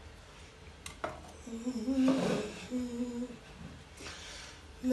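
A woman humming a tune in short, held phrases, with a single sharp click about a second in, like a metal fork touching the frying pan.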